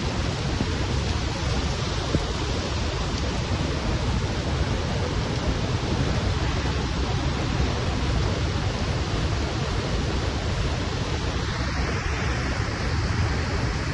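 Steady noise of water pouring down a waterfall.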